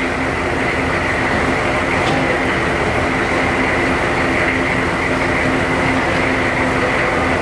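Steady mechanical drone with a constant low hum, the running machinery of a dairy barn.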